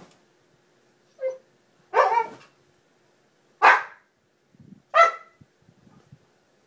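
Dog barking: a short, softer yelp about a second in, then three loud barks spaced about a second and a half apart.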